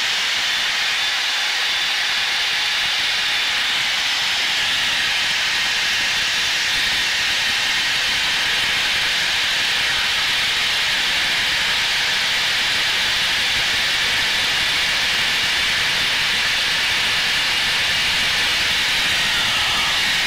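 Cockpit noise of a Blue Angels F/A-18 jet in flight: a steady, even hiss of engine and rushing air that holds unchanged throughout.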